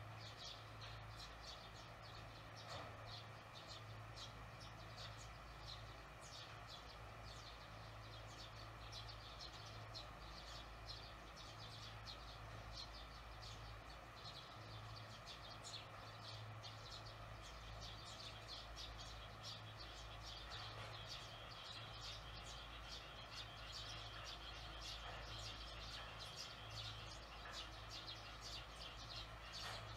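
Barn swallows twittering: faint, quick high chirps, several a second, over a steady low hum.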